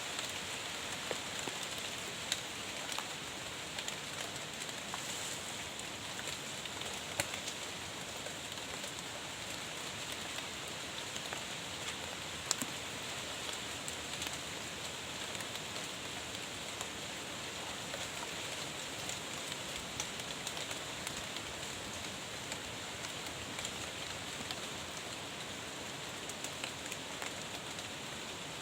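Heavy rain falling steadily and without letup, an even hiss of rain on surfaces, with a few sharper single drop taps standing out now and then.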